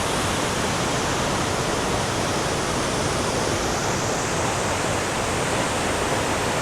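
Cumberland Falls, a large river waterfall, pouring and crashing into the pool below, a steady, loud rushing of water.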